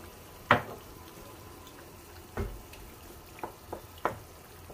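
Wooden spoon knocking against a frying pan while thick bolognese sauce is stirred. There is one sharp knock about half a second in, a duller knock with a thud midway, and three lighter taps near the end.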